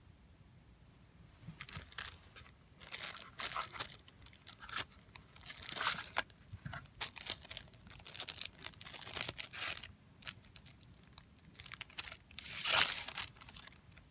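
Clear plastic bag crinkling and rustling in irregular bursts as a new knife is unwrapped, starting about a second and a half in and loudest near the end.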